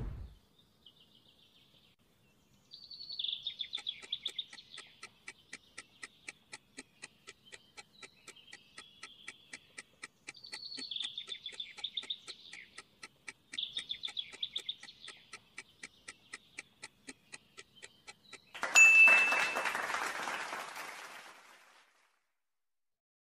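A countdown-timer sound effect ticking at a steady, quick rate over a bed of birds chirping. Near the end a loud, noisy swell fades away over about three seconds.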